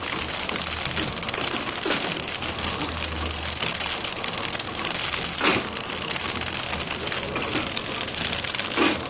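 Automatic packing machine running, sealing and wrapping packets on its conveyor: a dense, steady clatter over a low hum, with a louder knock about every three and a half seconds.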